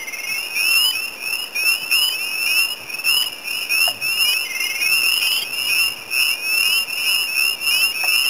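Chorus of spring peepers: many frogs giving short, high, rising peeps that overlap continuously, with an occasional short trill among them.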